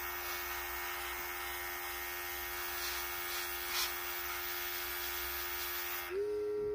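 Airbrush compressor running with the hiss of air and paint spraying through the airbrush. About six seconds in the spraying stops and the compressor's hum steps up in pitch as the air draw ends.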